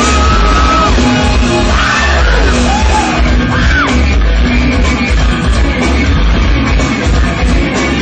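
Loud live rock music from a band, with heavy bass, electric guitar and a singer's yells over it.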